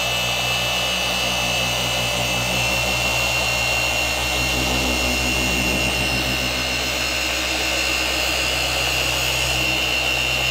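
Rupes random-orbital (dual-action) car polisher running steadily under load, working a medium foam pad with coarse compound over oxidised paint: a steady high motor whine over a low hum.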